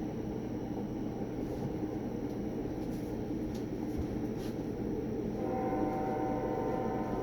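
Distant CSX freight train passing with a steady low rumble; its locomotive air horn sounds one long chord starting about five seconds in.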